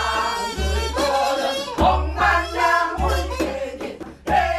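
A group of men's and women's voices singing a Korean folk song (minyo) together, accompanied by a small bamboo flute.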